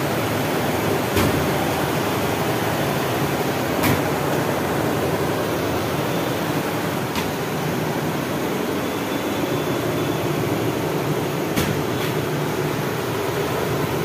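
Multi-head embroidery machine running, a steady dense mechanical drone with a few sharp clicks scattered through it.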